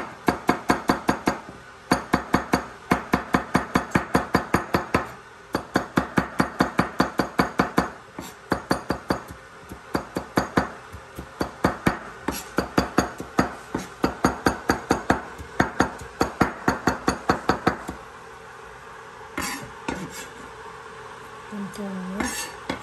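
Chef's knife rapidly chopping on a plastic cutting board, about five strikes a second in runs with short pauses, mincing small pieces fine. The chopping stops about three-quarters of the way through, followed by a few light clinks and a brief scrape as the minced pieces are pushed off the blade into a ceramic bowl.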